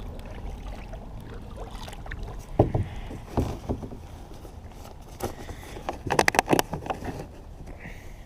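Kayak paddling: paddle strokes splashing in the water and knocking against the hull, with a quick cluster of sharp knocks about six seconds in.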